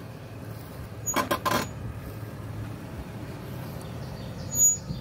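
SUV engine idling with a steady low hum, with a quick cluster of three or four sharp clicks about a second in and one short, sharp metallic clink near the end.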